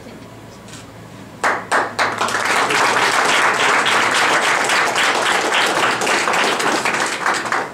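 Audience applauding: a few sharp claps about a second and a half in, quickly swelling into full applause that dies away near the end.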